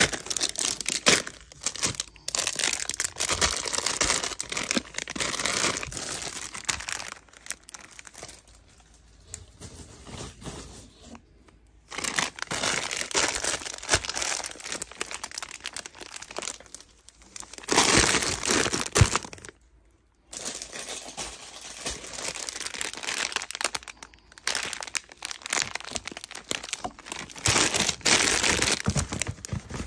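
Plastic candy packets crinkling and rustling as they are handled and packed into a cardboard box, in stretches with short pauses.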